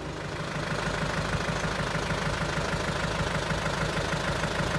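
SAME Leopard 90 Turbo tractor's air-cooled diesel engine idling steadily.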